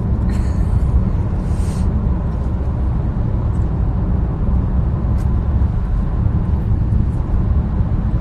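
Steady low rumble of road and wind noise inside a moving car's cabin.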